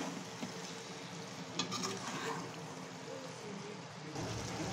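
Chicken pieces with onion and tomato sizzling in hot oil in a metal pot while a metal spoon stirs them, with a few sharp clinks of the spoon against the pot about one and a half seconds in. A low hum comes in near the end.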